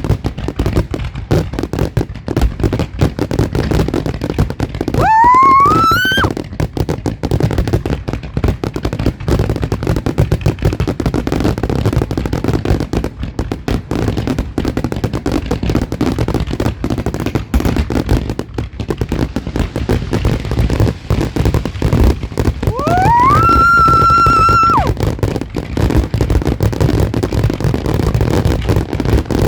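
Fireworks going off in a dense, continuous crackle of bangs and pops. Two high rising whistles cut through, one about five seconds in and a longer one about twenty-three seconds in that rises and then holds its pitch for a couple of seconds.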